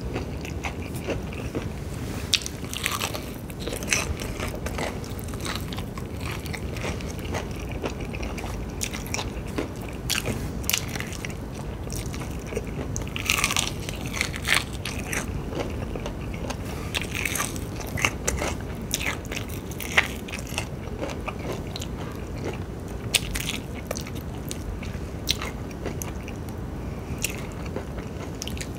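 Biting and chewing crispy fried chicken: sharp crackly crunches of the breaded skin at irregular moments, over a steady low background noise.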